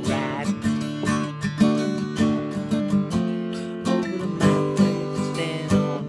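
Acoustic guitar strummed in a steady rhythm, chords ringing between the strokes.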